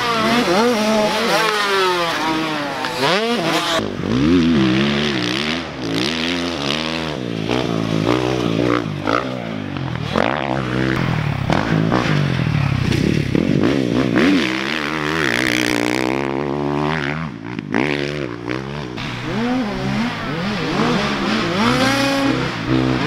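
Dirt bike engine being ridden hard, its pitch climbing and dropping over and over with throttle and gear changes.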